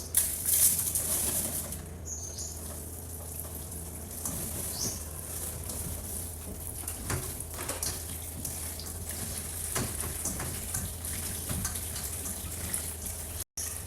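Sliced bitter melon being washed by hand with salt in a bowl. Tap water runs for about the first two seconds, then come wet rustling and squelching of the slices with small clicks and knocks.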